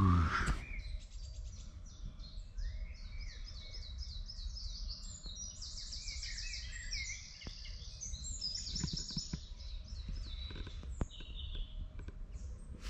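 Several songbirds singing in woodland: quick, high, repeated trills and chirps that overlap one another, over a low steady background rumble.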